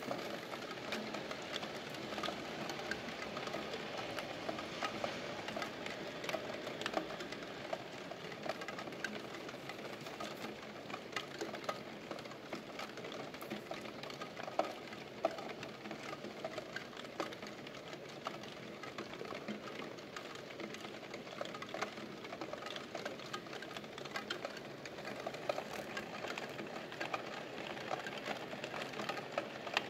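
Steady rain patter, with many single drops ticking sharply and irregularly through it.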